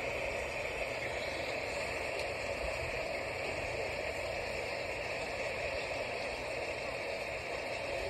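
Light rain falling steadily, an even hiss.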